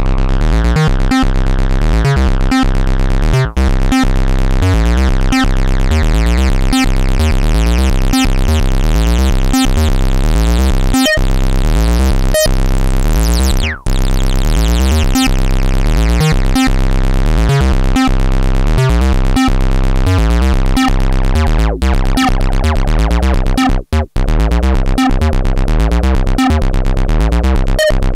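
Dreadbox Typhon monophonic analog synthesizer playing a continuous, repeating pattern of quickly changing bass-heavy notes.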